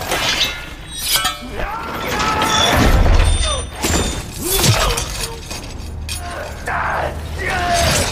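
Film sword-fight soundtrack: several sharp blade clashes and impacts between stretches of dialogue, over a steady bed of music.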